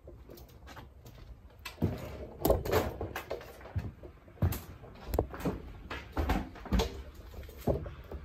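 Irregular hollow thumps and knocks, about a dozen spread over some six seconds and starting about two seconds in, from someone moving about inside a plywood-lined cargo trailer.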